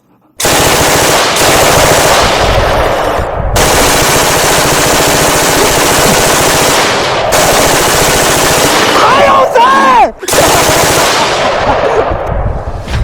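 Real M249 light machine gun sound effect dubbed over a gel-blaster replica: long bursts of rapid automatic fire, broken by short pauses about three and a half, seven and ten seconds in.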